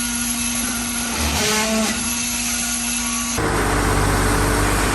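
Construction machinery running during a concrete slab pour. A steady motor hum, its pitch sagging briefly about a second in, changes abruptly about three and a half seconds in to a deeper diesel engine rumble.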